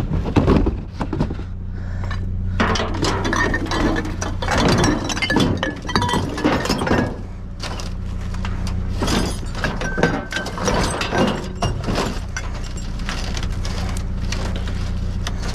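Scrap metal and junk clattering and clinking as things are pulled and tossed around in a dumpster, with a steady low engine hum underneath.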